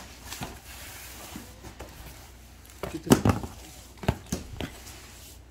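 Handling noises from boxes and packaging being moved about: a few short knocks and taps, a cluster about three seconds in and three more a second later.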